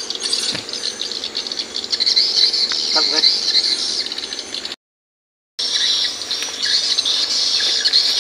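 Dense, steady high-pitched chorus of insects, dropping out completely for under a second a little past the middle.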